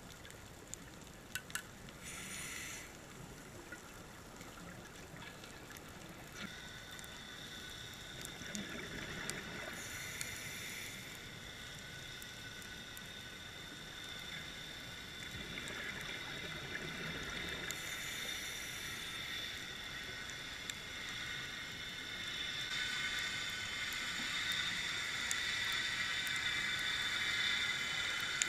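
A scuba diver's regulator breathing underwater: a hiss on each inhale about every eight seconds, with bubbling exhales between, over a scattered crackle of clicks.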